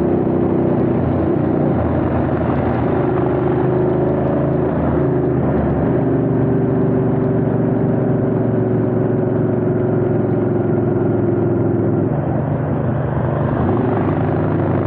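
Ducati motorcycle engines running at a steady road speed under way, with wind rush on the bike-mounted camera's microphone. The engine pitch shifts up and down a few times as the throttle changes.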